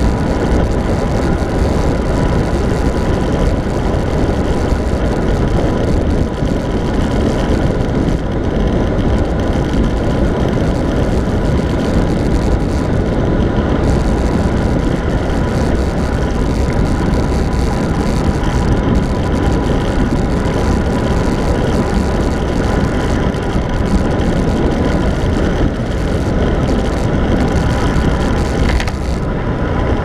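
Wind rushing over the microphone of a handlebar-mounted camera on a road bike descending a mountain pass at speed: a loud, steady, deep rush with a faint steady thin tone under it.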